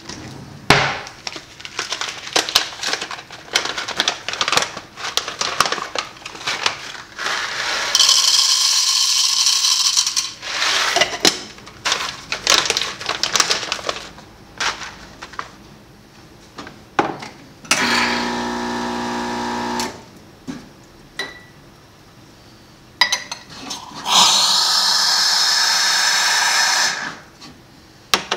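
A Quick Mill Andreja Premium espresso machine being worked by hand: a run of clicks, knocks and metal scrapes as the portafilter and tamper are handled, broken by three bursts from the machine. Two are loud hissing rushes of a few seconds each, one about eight seconds in and one near the end, and between them a pump hums steadily for about two seconds.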